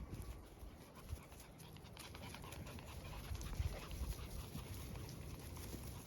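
Collie puppies panting as they play.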